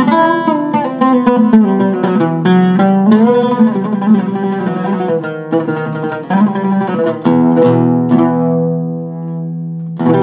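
Zaryab Turkish-style oud, with a cedar soundboard and African mahogany back, played solo: a run of plucked notes, some sliding in pitch, then about seven seconds in a final chord is struck and left to ring, fading away.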